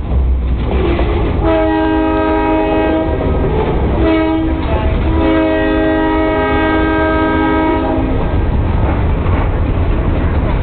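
Diesel locomotive air horn, several notes sounding together as a chord: a long blast, a short one, then a longer one, the pattern blown for a grade crossing. A steady low rumble of the locomotive runs underneath.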